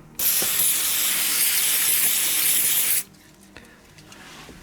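Aerosol can of DeoxIT contact cleaner spraying into an audio relay to clean its contacts: one steady hiss of nearly three seconds that cuts off suddenly.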